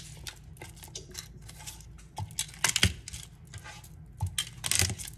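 Garlic cloves being smashed under the flat of a chef's knife on a plastic cutting board: a few sharp knocks and thuds, the loudest about three seconds in and another cluster near the end, with small clicks of the blade and cloves between.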